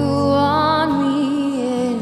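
A woman singing, holding one long note with vibrato over soft instrumental accompaniment.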